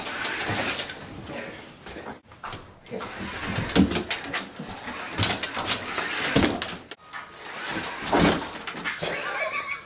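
Electric slot cars whirring around a plastic toy race track, with irregular clattering knocks as dogs chase them and scramble over the track.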